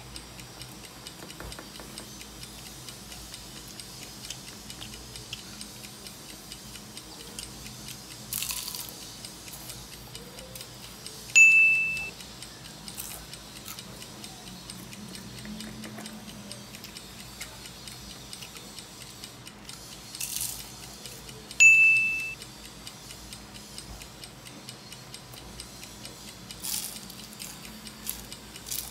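Steady clock ticking, with two short high dings about ten seconds apart. A few brief crunches of hard fried spring rolls being bitten.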